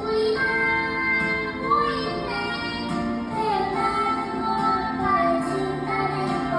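A young child singing a children's song over a recorded backing track, holding and gliding between sung notes.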